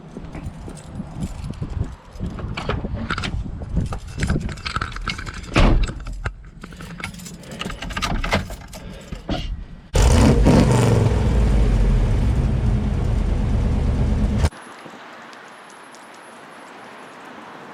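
Keys jangling among irregular clicks and rattles. About ten seconds in, a vehicle engine starts running loudly and steadily, then cuts off abruptly after about four seconds, leaving a quieter steady hiss.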